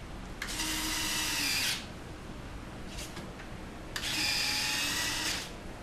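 Electric retractable landing gear of a foam RC model airplane cycling: two bursts of high-pitched small-motor whine, each about a second and a half long, one shortly after the start and one about four seconds in.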